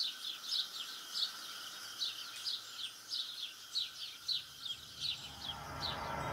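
A bird repeatedly giving short, high, downward-sweeping chirps, about two or three a second, over a faint steady background tone; a low hum grows in near the end.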